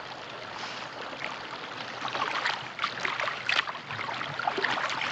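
Footsteps splashing in a shallow creek, in irregular splashes that grow louder from about two seconds in, over the steady sound of running water.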